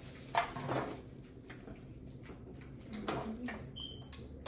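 Boiled crab and shrimp shells being cracked and peeled by hand: irregular crackling and wet squishing with small clicks, loudest about half a second in and again about three seconds in.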